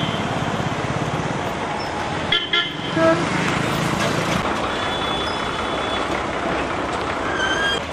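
Bus engines and traffic running steadily at a bus-stand gate, with short vehicle-horn toots about two and a half and three seconds in, and again near the end.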